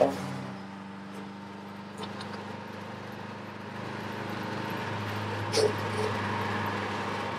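Inside the cabin of a big-turbo Mazdaspeed6's turbocharged four-cylinder: the engine note falls away as the throttle is closed at the start. It leaves a steady low engine drone and road noise while cruising on the highway, with a couple of brief faint squeaks a little past halfway.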